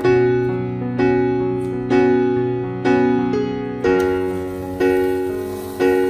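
Background piano music: chords struck about once a second, each dying away before the next.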